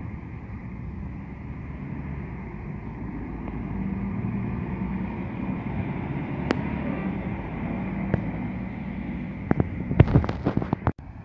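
A diesel bus engine running as a bus moves past close by, the drone building to its loudest in the middle. Near the end, a cluster of loud bumps and crackles on the microphone.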